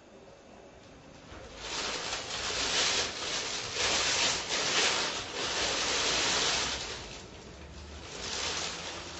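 Plastic bag rustling and crinkling as it is handled, in uneven surges that are loudest in the middle and fainter near the end.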